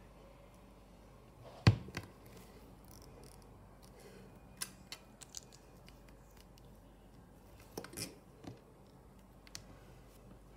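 Sharp little clicks and taps of Lego plastic parts being handled, pressed together and set down on a table: one loud snap about a second and a half in, a few light ticks in the middle and another cluster about eight seconds in.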